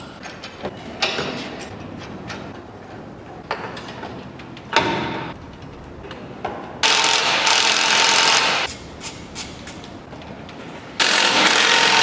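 A cordless power driver runs in two bursts of about two seconds each, one near the middle and one near the end, driving fasteners. Scattered clicks and knocks of hand assembly work come between the bursts.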